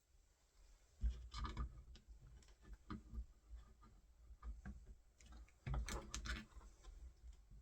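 Irregular small clicks and light knocks of door handle hardware and its fixing bolts being handled and fitted against a door, with a few dull bumps.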